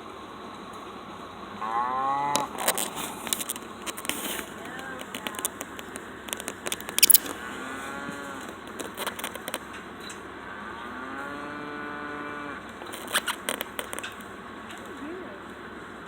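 Cattle mooing three times, the last call long and held, with sharp knocks and rattles in between, the loudest about seven seconds in.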